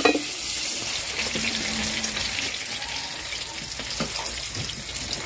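Flour-coated chicken pieces deep-frying in a wok of hot oil: a steady hissing sizzle, with the finished pieces being lifted out with a slotted spoon.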